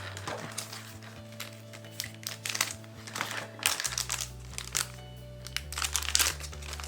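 Packaging crinkling and rustling in bursts as it is handled and unwrapped, over background music with a steady bass line.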